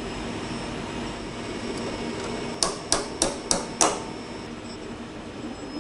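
A keyed drill chuck on a milling machine being tightened with a chuck key to grip a bare drill bit: five sharp metallic clicks in quick succession a little past halfway, over a steady background hum.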